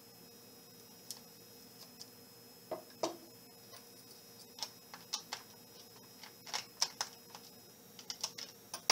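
Irregular light clicks and taps of a small Phillips screwdriver and fingers on a laptop's plastic case as a bezel screw is unscrewed, coming in quick clusters in the second half.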